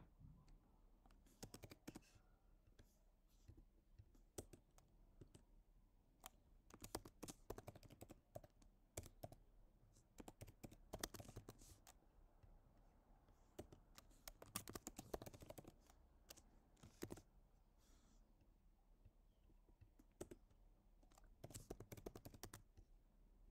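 Quiet typing on a computer keyboard: short bursts of rapid keystrokes with pauses between them.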